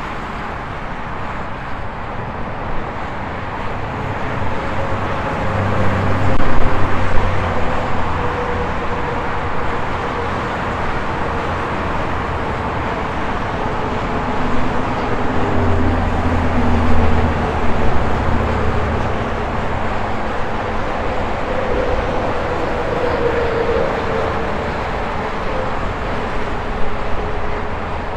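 Steady highway traffic: tyre and engine noise from passing cars and trucks, swelling as heavier vehicles go by about six seconds in and again about sixteen seconds in.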